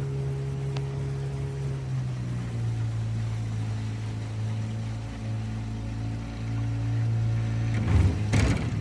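Boat motor running steadily at a low, even pitch, with a slight shift in tone about two seconds in. A brief louder noise breaks in near the end.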